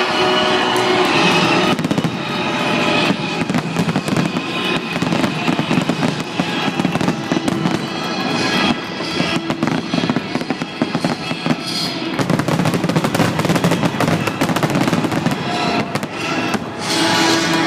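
A fast, dense barrage of firework bursts and crackles, with music playing underneath.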